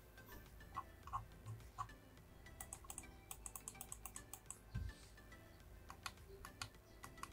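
Gigabyte Aorus M2 gaming mouse's side buttons being clicked repeatedly: faint, sharp clicks, with a quick run of them a few seconds in. There is one soft thump near the middle.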